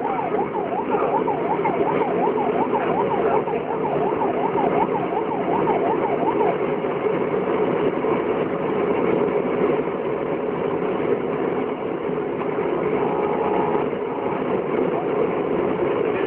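Convoy vehicle driving, with steady engine and road noise heard from inside the cab. A fast yelping siren sweeps up and down until about six and a half seconds in, and a brief steady tone sounds about thirteen seconds in.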